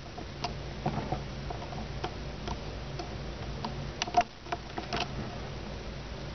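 Rubber bands being stretched and snapped onto the plastic pegs of a Rainbow Loom: light clicks and ticks at irregular intervals, a little busier about four to five seconds in.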